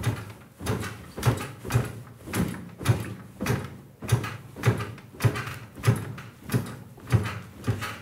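Foley of bed springs creaking in a steady rhythm, a little under two creaks a second, as someone moves on the bed. The creaks stop abruptly at the end.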